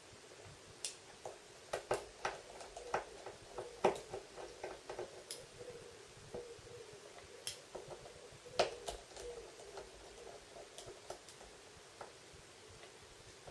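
Faint, irregular clicks and ticks of a Phillips screwdriver working small screws out of a Samsung Galaxy S4's plastic back frame.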